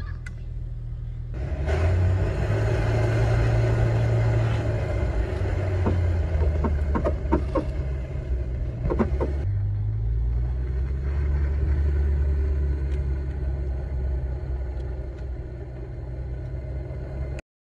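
Low wind rumble buffeting a microphone moving fast downhill over snow, with a hiss of sliding on snow that starts suddenly about a second and a half in and stops suddenly near the middle, and a few sharp clicks shortly before it stops.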